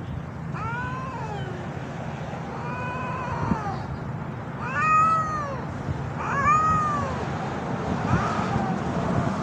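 Two stray cats caterwauling in a face-off: about five long, drawn-out yowls, each rising and then falling in pitch, a second or so apart. These are the threat yowls of cats squaring up to fight.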